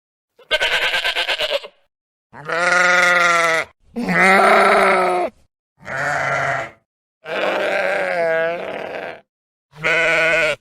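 Sheep bleating: six separate calls with dead silence between them, the first with a fast quaver and one of the longer calls dipping and rising in pitch.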